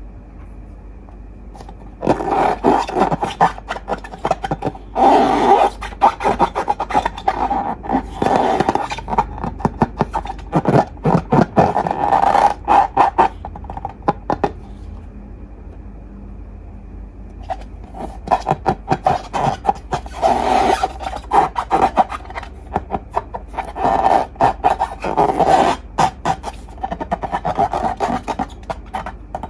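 Slime being squished and worked, a dense wet crackling and clicking. It comes in two stretches of about ten seconds each, with a quiet pause between them.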